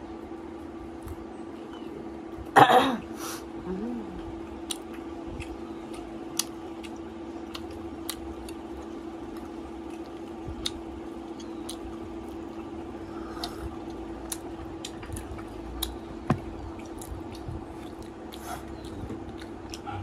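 Eating at the table: a metal spoon clicking against a stainless steel pot, with small scattered clicks and chewing, over a steady hum. A brief loud burst stands out about two and a half seconds in.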